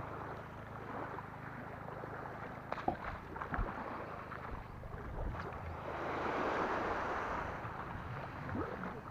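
Small waves lapping and washing onto a pebble beach, one swelling wash about six seconds in, with wind on the microphone and a few faint clicks.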